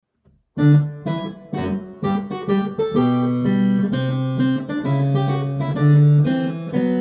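Acoustic guitar strumming chords as the introduction to a song. It starts about half a second in with a few separate strokes, then settles into continuous strumming.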